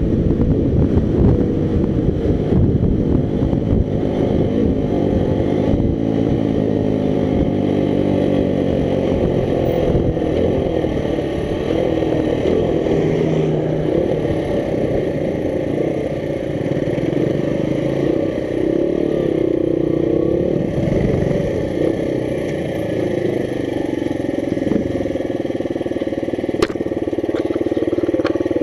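Motorcycle engine heard from the rider's seat, its pitch rising and falling with throttle and gear changes while riding, then settling to a steadier note as the bike stops near the end. A sharp click near the end.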